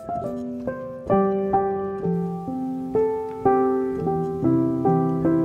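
Background piano music, with notes struck about twice a second, each ringing and fading.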